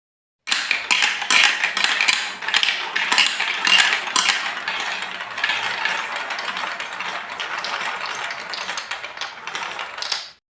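Marbles rolling and clattering along a plastic Lego Duplo block track: a dense run of clicks and rattles. It starts about half a second in, is busiest early on, and cuts off abruptly near the end after one last louder clatter.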